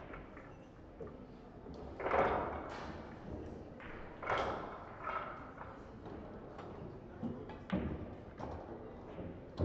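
A few scattered thuds and rustles over the background hum of a large hall; no balls are struck.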